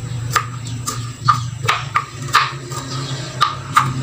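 Kitchen knife chopping garlic cloves on a cutting board: about eight sharp, irregular knocks of the blade against the board.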